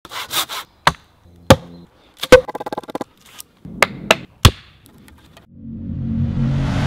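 Hatchet chopping into a log: about six sharp blows with a quick run of lighter taps between them. Near the end a rising, rumbling swell of music comes in.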